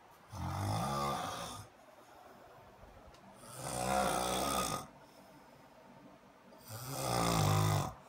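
A sleeping man snoring loudly: three long, rasping snores about three seconds apart, each a low buzzing rattle on the in-breath with quiet pauses between.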